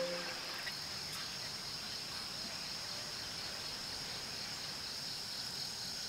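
Steady, high-pitched insect chorus with an even, unbroken drone over faint outdoor ambience.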